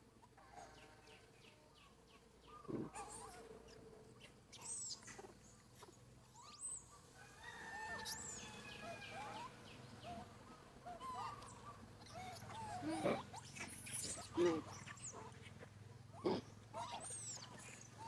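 Scattered short animal calls, chirps and squeaks, some sliding up or down in pitch, with a few louder calls in the second half.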